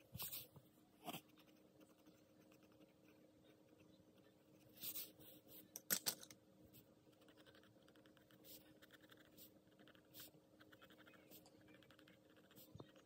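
Graphite pencil drawing on paper: faint, quick scratching strokes, with a few louder short scratches near the start, about five to six seconds in, and around ten seconds.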